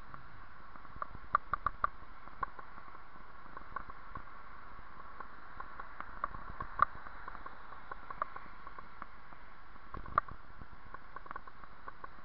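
Bicycle rolling along a paved trail: a steady hiss with irregular sharp clicks and rattles as the bike and its mounted camera jolt over the surface. There is a quick run of clicks about a second and a half in, and single louder knocks near seven and ten seconds.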